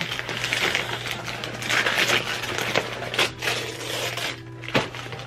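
Paper crinkling and tearing in a rapid string of crackles as a wrapped gift is opened by hand.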